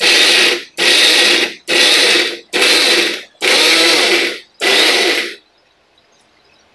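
Havells Sprint 600 mixer grinder run in short pulses, about six bursts of under a second each with brief pauses, grinding chopped raw mango, onion and green chillies into chutney. The motor stops a little over five seconds in.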